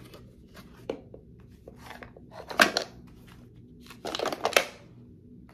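Clear plastic storage box and wooden tangram trays being handled: scattered light clicks and knocks, with louder plastic clatter and crinkling about two and a half seconds in and again for about half a second around four seconds in.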